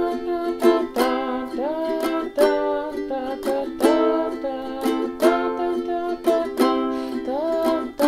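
Ukulele strummed in a five-stroke pattern (down, up, up, down, up), one pattern per chord through Am, F, C and G. A voice sings the chorus melody over it.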